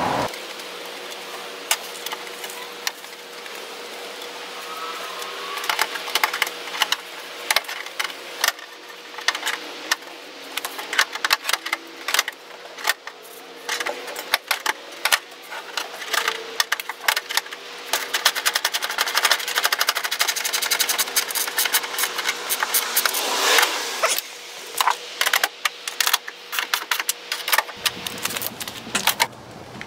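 Ratchet wrench clicking in quick runs, with metal clinks, as nuts are run onto the studs of an aluminium tailgate trim panel from inside the tailgate.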